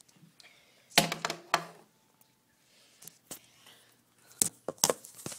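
A staple gun firing once about a second in, a single sharp loud snap, followed near the end by a few quieter clicks and knocks.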